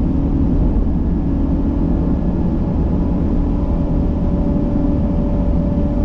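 Camper's engine and tyre noise heard from inside the cab while driving: a steady low rumble with a few faint, even hums above it.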